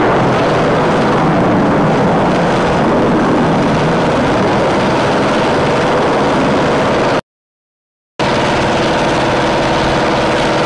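An engine running steadily and loudly, with many steady tones in the noise. It cuts out completely for about a second roughly seven seconds in, then carries on with a steadier, more evenly pitched hum.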